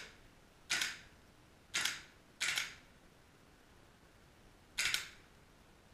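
Airsoft rifle firing four single shots at uneven intervals: about a second in, twice close together near two seconds, and once near five seconds. Each shot is a short, sharp snap that dies away quickly.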